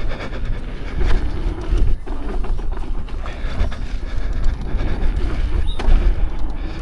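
Apex electric unicycle ridden fast over a rough dirt trail: continuous rumble with irregular knocks and rattles as the wheel and its coil-sprung suspension take the bumps.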